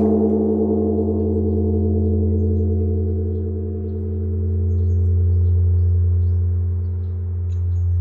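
Large Japanese bronze temple bell (bonshō) ringing on after one blow of its swinging wooden log striker: a deep, sustained hum with several higher tones above it, swelling and fading slowly about every three seconds. Small birds chirp faintly in the background.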